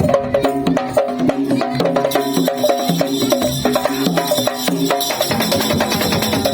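Madurese tong-tong ensemble playing: a fast rhythm of wooden slit drums and hand drums under a short, repeating pitched melody. A brighter ringing layer joins about two seconds in.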